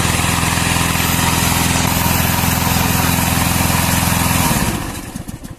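Remote-control lawn mower's engine running steadily, then shut off about four and a half seconds in, its firing slowing as it spins down to a stop.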